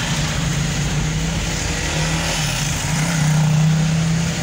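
A vehicle's engine running as it drives slowly down a street, a steady low hum over street noise that swells and rises slightly about three seconds in.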